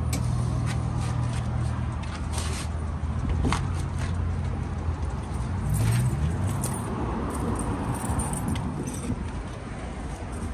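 Diesel truck engine idling with a low steady hum, its pitch rising briefly about six seconds in before settling into a rougher rumble, with scattered metallic clicks and clinks over it.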